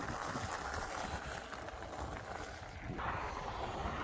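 Steady wind and rolling road noise while riding a Lectric e-bike along a road. The noise grows louder and brighter about three seconds in.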